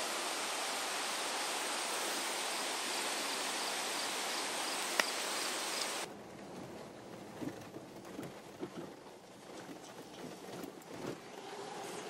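Steady rushing noise of flowing water, cut off abruptly about six seconds in. After it comes the quieter sound of a car rolling slowly along a road, with a few soft knocks.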